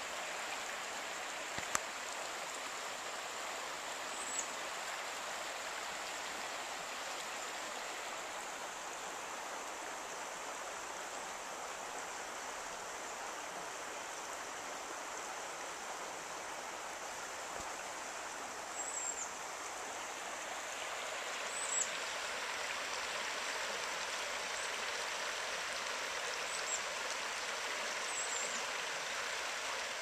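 Creek water running steadily, swelling slightly about two-thirds of the way through. A bird gives a few short, high chirps scattered over it.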